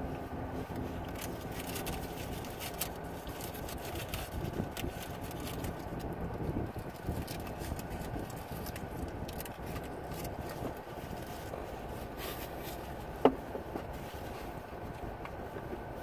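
People eating burritos in a car: faint chewing and foil wrappers crinkling, with scattered small clicks, over a steady low hum inside the car. One sharp click about 13 seconds in.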